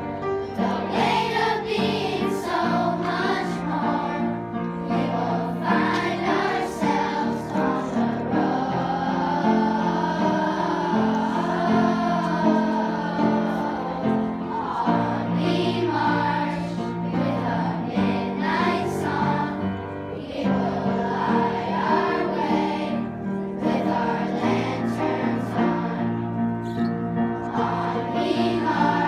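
A choir singing in sustained phrases, with many voices holding notes together.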